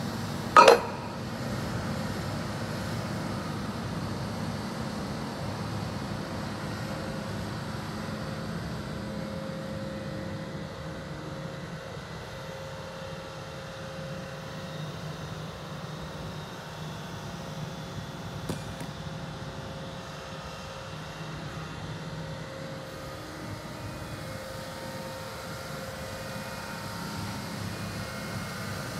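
The diesel engine of a Fuchs MHL340D material handler runs steadily as the boom lifts and swings a scrap magnet, its pitch shifting partway through as the hydraulics work. There is a single loud clank about a second in.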